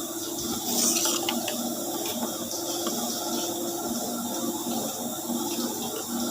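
Cassette air conditioner drain pump running and moving water: steady gurgling and splashing water over a pulsing hum, with a louder splash about a second in.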